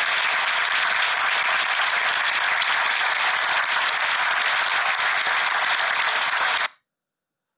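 A room of people applauding, a dense steady clapping that cuts off suddenly about a second before the end.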